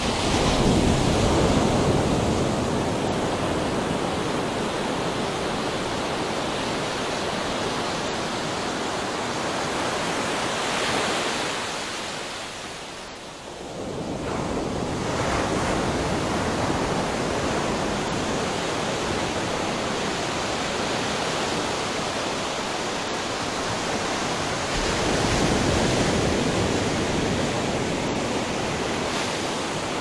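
Ocean waves gently crashing and washing on a shore: a steady rush of surf that swells at the start, drops to a brief lull a little before halfway, then builds again and swells once more near the end.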